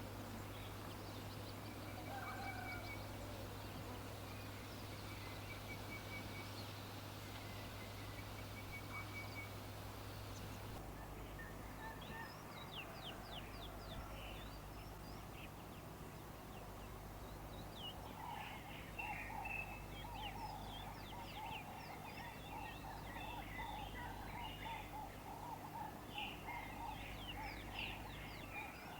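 Several birds calling: short high chirps and trilled phrases, joined from about two-thirds of the way in by a long run of rapid, lower-pitched chattering calls, over a steady low hum. The background changes abruptly about a third of the way in.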